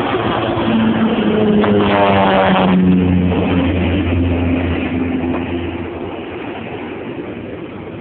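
Crop-duster airplane's engine passing low overhead. It grows loud, its pitch drops steeply about two to three seconds in as it goes by, then it fades as the plane flies off.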